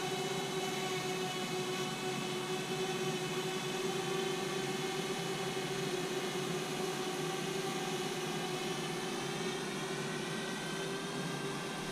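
A DJI Spark quadcopter hovering and flying in follow mode: its four propellers make a steady, high-pitched hum over a hiss, a little quieter near the end.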